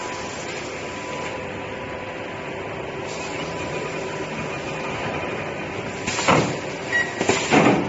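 Multi-head spot welding machine running, a steady machine noise with a faint hum. About six seconds in come several loud, sudden noisy surges as the machine cycles.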